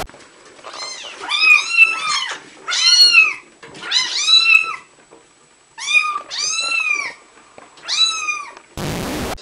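Kittens meowing: about eight high-pitched, arching cries, some close together in quick pairs. A short burst of TV-static hiss comes near the end.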